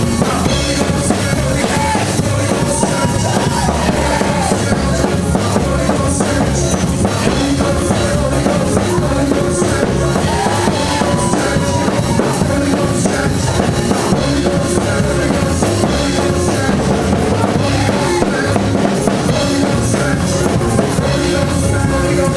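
Gospel worship music played loud by a band, a drum kit with bass drum keeping a steady beat.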